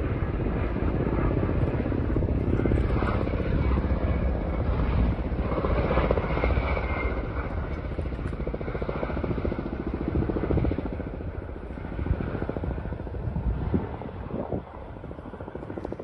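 Military helicopter flying low past, its rotors chopping in a steady, dense drone that eases off over the last couple of seconds.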